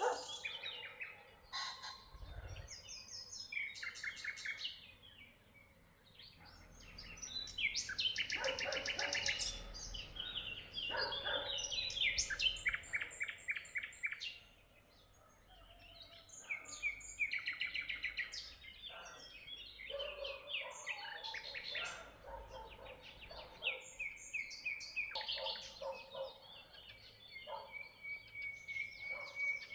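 Several songbirds singing and chirping over one another: quick repeated chirps and fast trills, with a short lull about halfway through.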